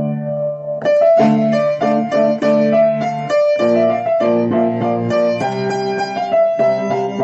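Piano music: a run of single melody notes, a new one every third to half a second, over sustained lower chords.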